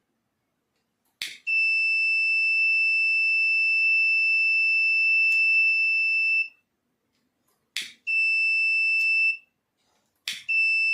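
Fire-alarm buzzer sounding a steady high-pitched tone three times: once for about five seconds, then twice more for about a second and a half each. A sharp click comes just before each tone.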